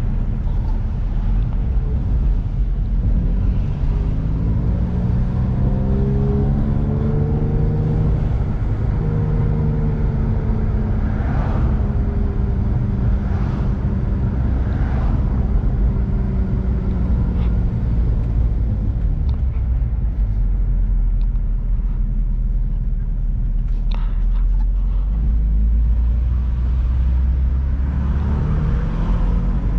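Bolt-on Infiniti G35's V6 engine and road noise while driving. The engine note climbs over a few seconds, then slowly eases back down, over a steady low rumble from the road that grows heavier later on.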